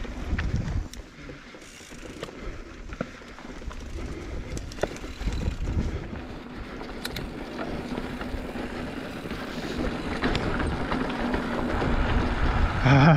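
Mountain bike rolling fast down a dry dirt trail: tyres rumbling on the dirt with wind on the microphone, and irregular clicks and rattles from the bike over bumps. A voice calls out briefly at the very end.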